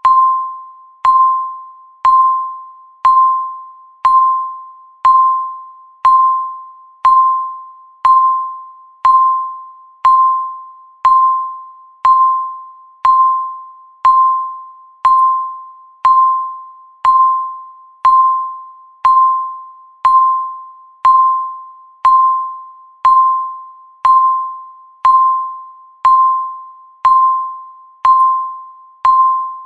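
Countdown timer beep: a single electronic tone near 1 kHz, struck once every second and fading quickly after each onset, repeating evenly.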